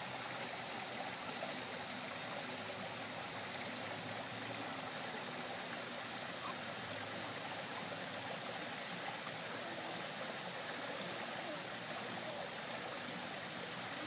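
Water running steadily over the rocks of a small waterfall and stream, an even rushing trickle.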